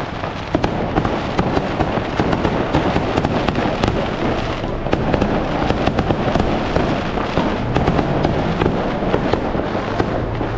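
Food sizzling and crackling steadily on a hot cooking surface: a dense, continuous spatter of fine pops.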